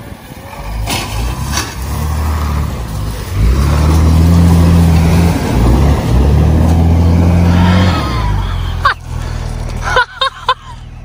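School bus engine revving hard in two long pulls with a short dip between, as the bus ploughs through a flooded creek with water splashing and spraying around the wheels. A few short shouts come near the end.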